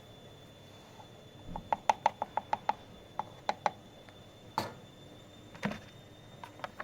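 A quick run of about seven sharp clicks, followed by several scattered clicks and one louder knock about halfway through, from handling a Miele Professional WS5436 washing machine.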